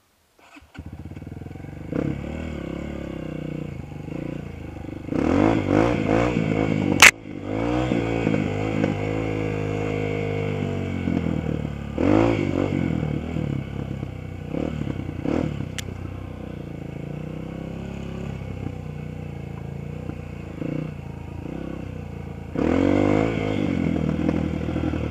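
Off-road dirt bike engine running under load, its revs rising and falling as the rider accelerates, backs off and shifts through gears on the trail. A sharp knock stands out about seven seconds in, with a fainter click later.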